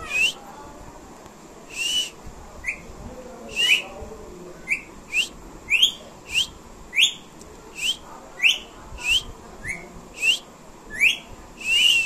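Rose-ringed parakeet (Indian ringneck) giving a run of short, sharp calls, each rising in pitch. They come about one every half second to second, more closely spaced in the second half.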